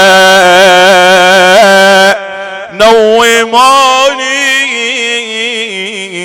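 A solo voice chanting an Arabic mourning lament in long, held, wavering melismatic notes. It breaks off briefly about two seconds in, then goes on a little more softly.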